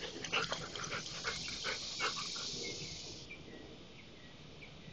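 Chocolate Labrador retriever panting rapidly close to the microphone, a quick run of short breaths that fades after about three seconds.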